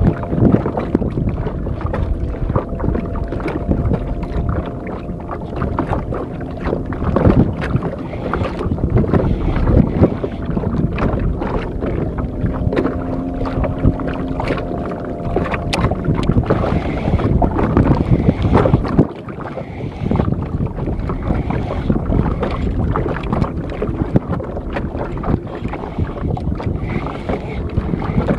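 Wind buffeting the microphone over water lapping and slapping against a small outrigger boat, in a dense, uneven wash of noise. A faint steady hum comes in near the start and again around the middle.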